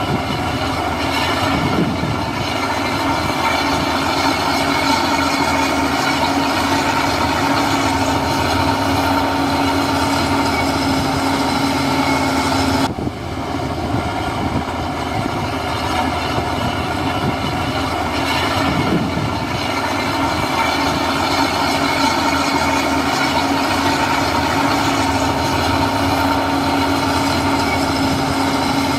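Heavy diesel construction machinery running steadily, a continuous engine drone with a held whining tone. The sound breaks off abruptly and resumes about thirteen seconds in.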